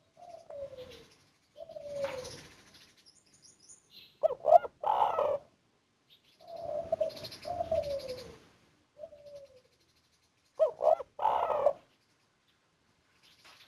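Spotted dove (tekukur) cooing: two song phrases, each a few soft falling coos followed by a loud, clear 'kuk' ending.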